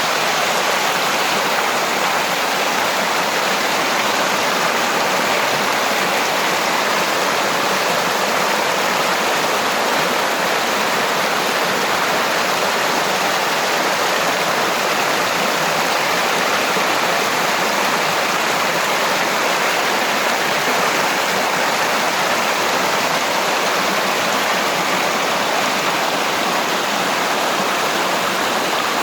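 Waterfall on a creek: water falling and splashing in a steady, unbroken rush.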